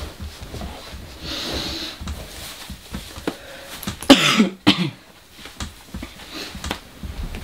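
A man coughs twice into his fist about four seconds in, a first long cough followed by a shorter second one.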